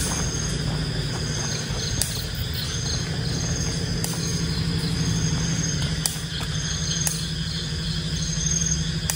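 Night insects, crickets among them, chirping in a forest: a high pulsed chirp repeating about once a second over a steady higher trill. Beneath it runs a steady low hum, and a sharp click sounds every second or two.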